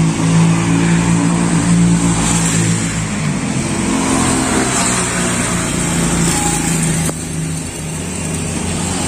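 An engine running steadily, its hum wavering slightly now and then, with a hiss over it.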